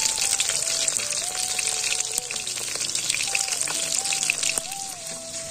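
Whole tilapia frying in hot oil in a wok: a dense, steady sizzle full of small crackles and pops. A thin melody line steps up and down beneath it.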